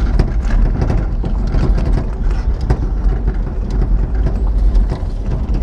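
Vehicle driving on a rough dirt track, heard from inside the cab: a steady low rumble of engine and road, with constant rattles and knocks from the body over the bumps.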